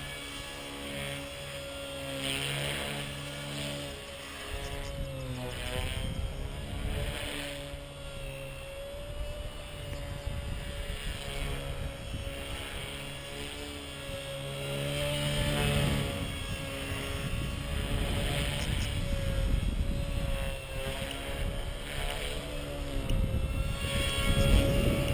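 Gaui EP200 electric model helicopter in flight: a steady motor and rotor whine that wavers slightly in pitch as it manoeuvres, with a low rumble coming and going underneath.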